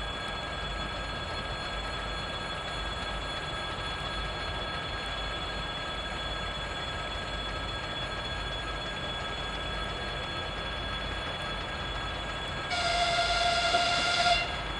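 A train horn sounds one long steady note of under two seconds near the end, over a steady low rumble.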